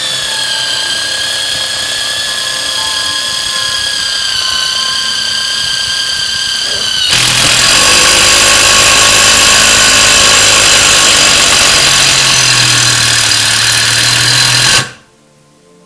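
Cordless impact driver spinning a self-drilling screw into half-inch steel: a steady high motor whine while the tip drills. About seven seconds in, the impact mechanism kicks in as the load rises and the driver hammers much louder, until it stops suddenly with the screw seated.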